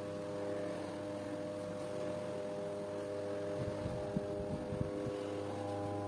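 A steady hum made of several steady tones over a low drone, shifting slightly a couple of times, with a few faint taps in the middle.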